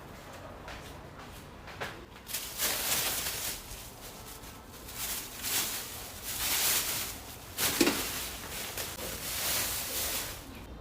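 Intermittent rustling and handling noises in a small room, in swells of a second or two, with a short knock near the end.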